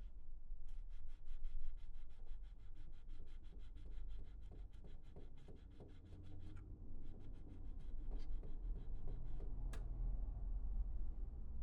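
Rapid, even clicking, about eight clicks a second, with a short break about six and a half seconds in before it resumes; one sharper click near the end and a steady low hum underneath.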